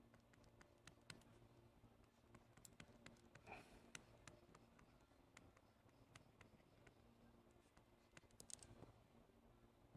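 Faint, irregular clicks and taps of a stylus nib on a pen-display screen as lines are drawn, over a faint steady hum.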